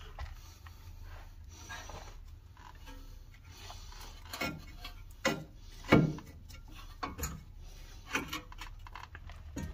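Scattered metal clunks and taps from a Honda Civic's front suspension parts being handled: the lower control arm is worked against the ball joint studs on the steering knuckle. There are about six separate knocks, the loudest about halfway through.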